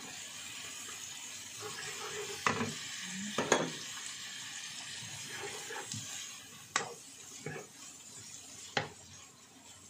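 Green chilies and other stir-fry ingredients sizzling in a granite-coated frying pan while a wooden spatula stirs them, with four sharp knocks of the spatula against the pan. The sizzle is strongest in the first six seconds and eases after.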